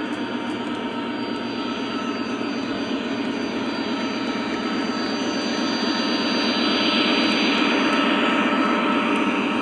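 Lionel Legacy Conrail SD70MAC O-gauge model locomotive and its freight cars rolling along three-rail track: a steady rumbling run with a faint steady whine in it. It grows louder from about six seconds in as the locomotive and cars pass close by.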